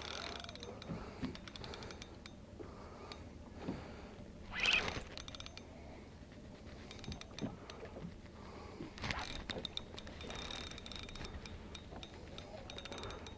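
Fishing reel clicking and ratcheting in quick runs of ticks while a hooked fish is being fought, with one short louder sound about a third of the way in.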